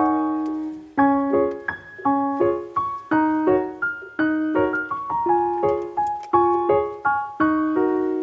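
Background music: a piano-like keyboard playing a steady, gentle melody of separate notes, each ringing and fading.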